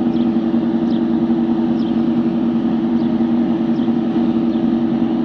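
Steady low mechanical hum on two unchanging pitches, with faint short high chirps now and then.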